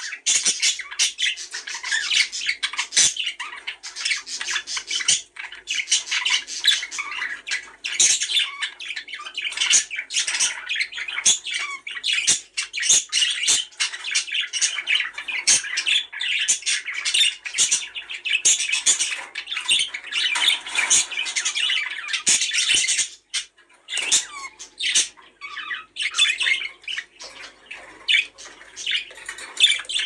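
Budgerigars chattering and warbling without pause, with squawks and sharp clicks mixed in: budgie chatter of the kind played to stimulate pairs to breed.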